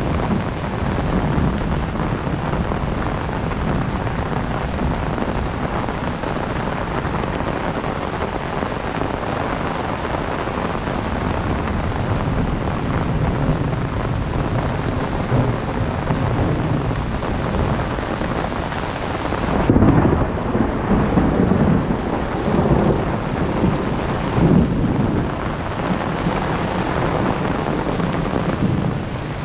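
Heavy rain falling steadily, with a low rumble of thunder rolling in about two-thirds of the way through.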